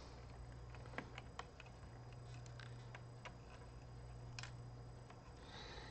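Faint, scattered clicks and ticks of small laptop parts being handled as the cooling fan is taken out, over a low steady hum.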